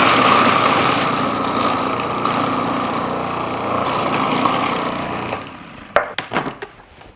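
Electric blender running steadily, chopping onion, ginger, garlic and soy sauce into a coarse marinade paste, then switching off about five and a half seconds in. A few sharp clicks follow near the end.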